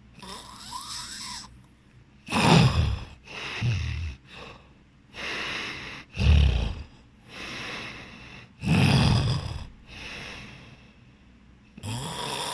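A person snoring heavily in sleep, with loud snores every one to three seconds and quieter breaths between them.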